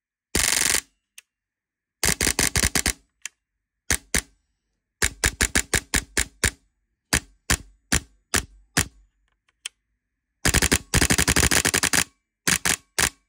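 Gate Pulsar D dual-solenoid HPA airsoft engine firing: short full-auto bursts and runs of quick single shots, each a sharp crack, with a longer burst of about a second and a half near the end.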